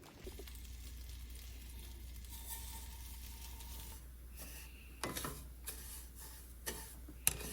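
Food sizzling faintly in a pan, a steady soft hiss, with a few light clicks in the last couple of seconds.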